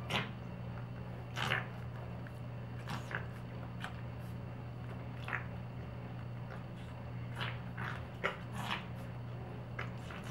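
Exotic shorthair (flat-faced) cat making its own short, breathy noises while playing at dental floss: about a dozen brief bursts spaced irregularly, over a steady low hum.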